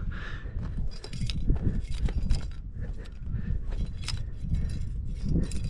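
Metal climbing gear clinking and jangling: carabiners and cams on a harness rack knocking together in many small scattered clicks as the climber moves, over a dense low rumble.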